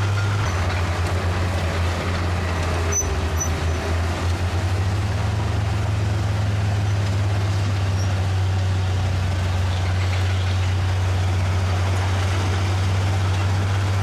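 Heavy diesel engine of earthmoving machinery running steadily under load, a deep constant drone, with a single sharp knock about three seconds in.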